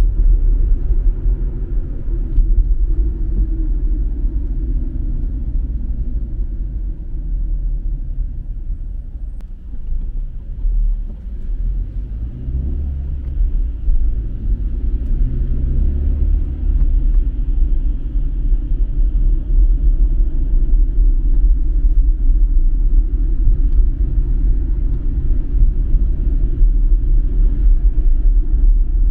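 Low, steady rumble of a car driving, with engine and tyre noise heard from inside the cabin. It drops a little for a moment about ten seconds in.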